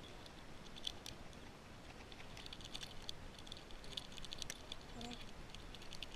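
Hands gripping and handling a wet fish pressed against the camera: faint, irregular clicking and crackling, thickest in the middle.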